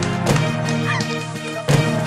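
Background music with held low notes and a few short sliding tones, and a sudden hit near the end.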